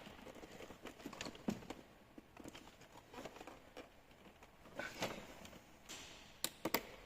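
Scattered faint clicks and taps of plastic being handled as hands work a stuck wiring connector in a car door, with a few sharper clicks about 1.5 s, 5 s and near the end.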